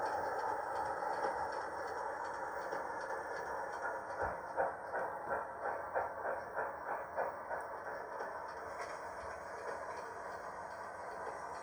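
7mm-scale model GWR steam railmotor running on the track, its Youchoos sound decoder giving steam sounds over the running noise. A run of regular beats, about two or three a second, comes through in the middle, then the sound eases off a little.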